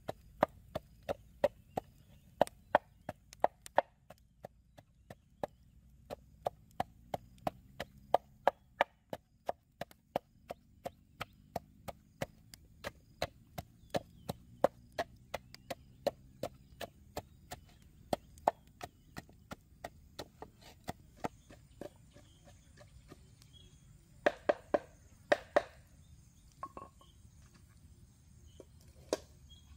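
Wooden pestle pounding in a wooden mortar: sharp knocks about two a second, steady for most of the time. Near the end it stops, leaving a few scattered louder knocks.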